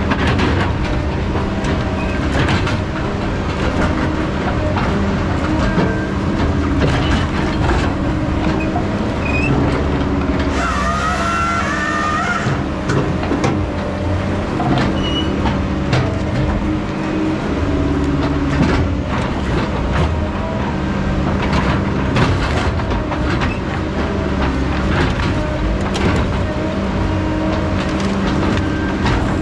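Heavy logging equipment's diesel engine running steadily, with repeated metallic clanks and knocks, and a brief squeal with a hiss about eleven seconds in.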